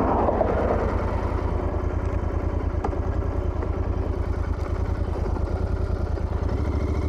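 Royal Enfield Continental GT 650's parallel-twin engine running steadily, with an even, fast firing pulse; its low note shifts about six and a half seconds in.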